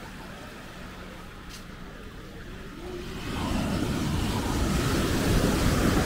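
Small waves breaking on the beach and washing up the sand: a soft, low rush at first, swelling about halfway through into a loud, steady rush of surf.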